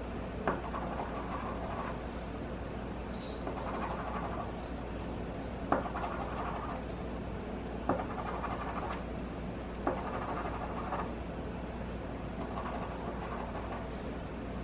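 Scratch-off lottery ticket being scratched in about six short bursts, each about a second long. Most of the bursts begin with a sharp tap.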